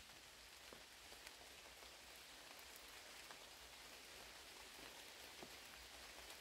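Near silence in a forest: a faint, even hiss with a few soft, scattered ticks.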